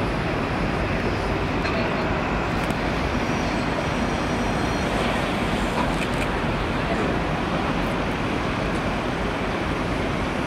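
Steady, even roar of outdoor background noise, like road traffic, holding the same level throughout with no rise or fall.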